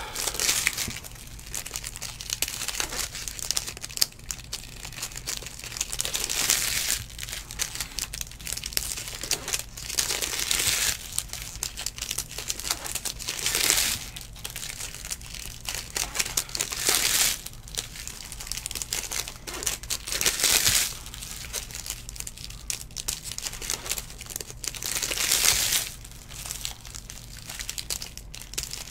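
Bowman baseball trading cards thumbed through by hand: a papery swish each time a card is slid off the stack, every three or four seconds, with faint shuffling between.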